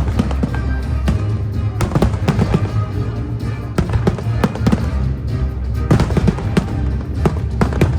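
Fireworks display: many sharp bangs and crackling bursts, several a second, over the show's music.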